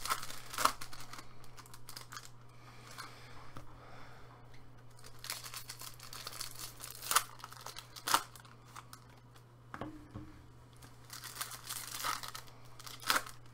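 Foil hockey card packs being torn open, the wrappers crinkling and rustling, with a scattering of sharp rips, over a faint steady low hum.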